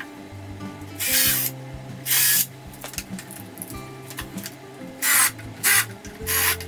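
Ryobi cordless drill running in five short bursts as it bores into and drives screws through pine boards, over background music.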